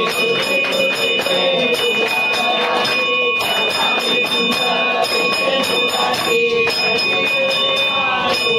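Hanging brass temple bell rung by hand over and over, its ringing running on without a break, while a group sings an aarti. Sharp strikes beat about three times a second through it.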